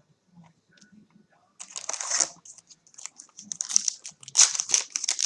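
Foil trading-card pack wrapper crinkling as it is handled and torn open. It starts about a second and a half in as scattered crackles and grows louder and denser toward the end.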